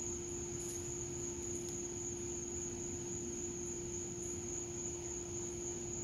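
Night insects trilling in one high, unbroken note, over a low steady hum and a constant background rush.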